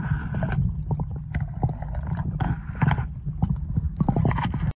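Underwater sound in a swimming pool: a steady low muffled rumble with scattered clicks and knocks. It cuts off suddenly just before the end.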